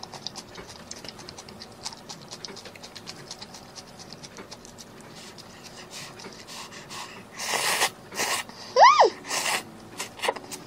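Close-up eating of instant ramen: quick wet chewing and lip-smacking clicks, then loud slurps of noodles about seven and a half seconds in, with a brief squeaky rising-and-falling tone near nine seconds.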